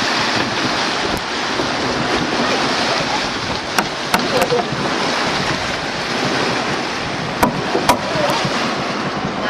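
Steady rush of sea and wind around a sailing yacht under way, with a few sharp knocks about four seconds in and again near eight seconds.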